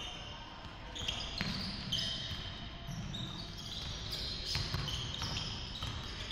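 Pickup basketball on a hardwood gym floor: a ball dribbled with dull thuds and sneakers squeaking in short high-pitched chirps as players cut, all echoing in a large gym.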